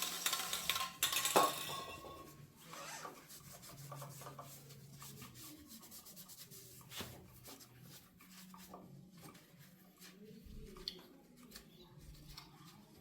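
Hand work on a Yamaha YZF-R3's front brake caliper and pads: loud rubbing and scraping for the first couple of seconds, then quieter scattered clicks and light rubbing of metal parts.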